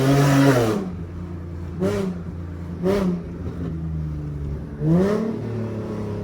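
Nissan 370Z's 3.7-litre V6, fitted with resonated test pipes and a flame tune, revved high and dropping back to idle about a second in, then blipped twice in quick succession and revved once more near the end, idling in between.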